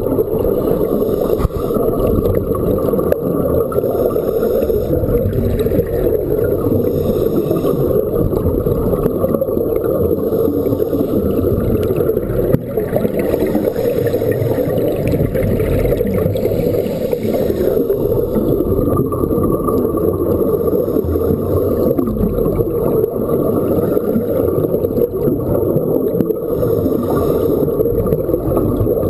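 Underwater sound picked up through a camera housing: a steady, muffled rush of water with the gurgle of scuba divers' exhaust bubbles.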